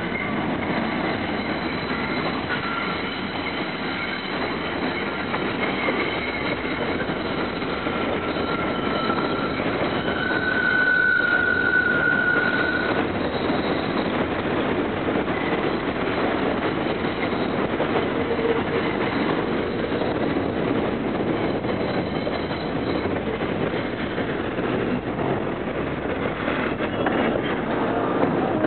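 R142 subway trains running through an elevated station, with continuous wheel and track noise. A high steady squeal lasts a few seconds near the middle. Rapid clicking over the rails comes near the end as a train passes close.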